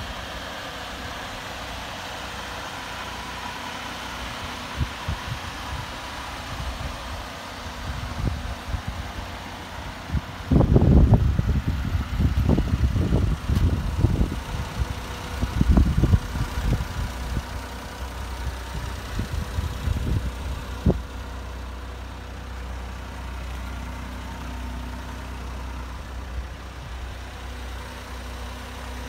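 A 1996 Daihatsu Hijet van's small twin-cam three-cylinder engine idling steadily. Through the middle stretch, irregular low rumbles of wind buffet the microphone and are the loudest sound.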